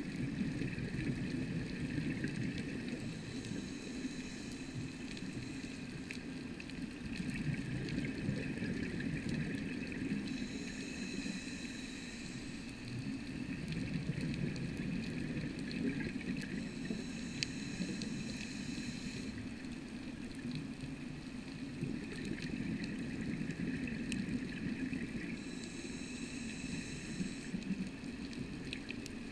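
Underwater sound of a scuba diver breathing: a steady bubbling rumble from exhaled air, with a hiss from the regulator that comes and goes four times, about every seven seconds.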